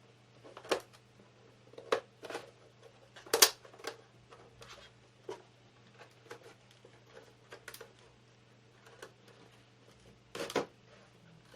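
Irregular sharp clicks and knocks, with about half a dozen louder ones, from handling and prying at an LCD monitor's plastic case during disassembly. A faint steady low hum lies underneath.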